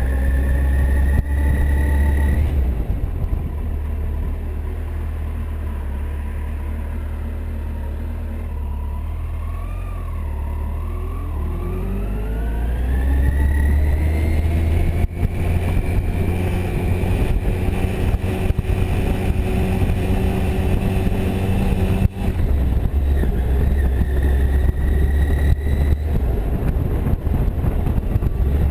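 Kawasaki Concours motorcycle engine running under way: its pitch drops about two and a half seconds in, climbs steadily from about eleven to fifteen seconds as it accelerates, then holds, with a brief dip near twenty-two seconds, typical of gear changes.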